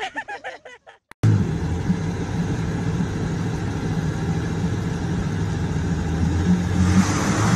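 A truck engine running steadily under load while towing through mud. A brief voice is heard in the first second, before the engine sound starts.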